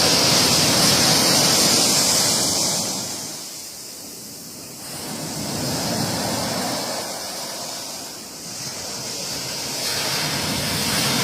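Sea waves breaking against a pier: a rushing wash of surf that surges and falls back. It is loudest over the first few seconds, ebbs about four seconds in, then builds again in two further surges.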